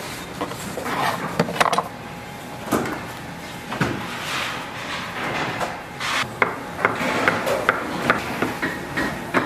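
A long knife cutting through stacked sandwiches on a wooden cutting board, with scattered knocks of the blade and the cut pieces against the board.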